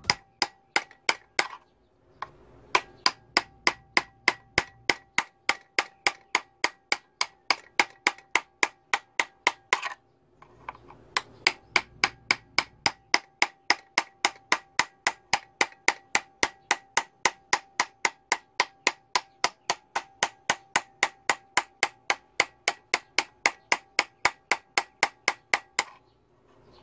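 Rapid, even hammer blows on a forged steel knife blade resting on a steel plate in a vise, about four a second, each with a short metallic ring. The blows break off twice briefly and stop near the end.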